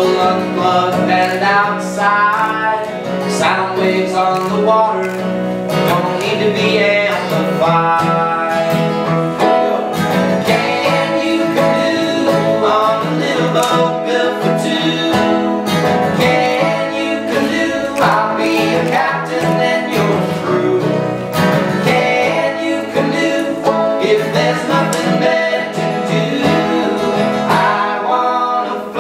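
Banjo and acoustic guitar playing together in a bluegrass-style folk song.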